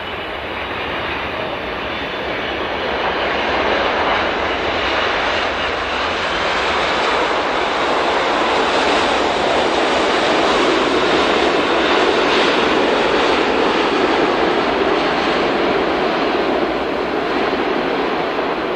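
Boeing 747 jumbo jet's engines roaring as it lands and rolls out. The steady rushing noise swells over the first few seconds, then holds loud.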